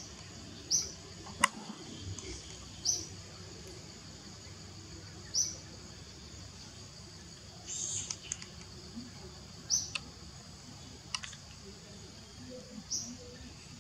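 Forest ambience: a bird's short high chirp repeated every two to three seconds over a steady high hiss, with a few sharp clicks in between.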